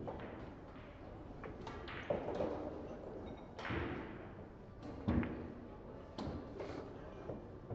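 Scattered sharp knocks and thuds, about five in the space of a few seconds, each with a short echo; the loudest comes about five seconds in.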